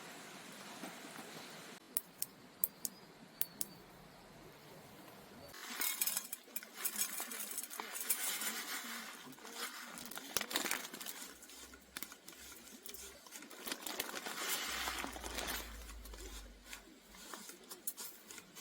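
Tableware clinking while eating: a few sharp light taps about two to three and a half seconds in, then a longer stretch of denser clattering and rustling of dishes and cutlery.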